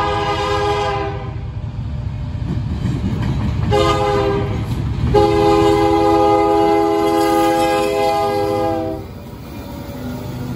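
Diesel locomotive air horn blowing a grade-crossing signal as a Union Pacific SD70M leads a freight train past: a long chord ends about a second in, a short blast comes near four seconds, and a long blast is held until about nine seconds. Under it runs the steady rumble of the locomotives and train passing close by.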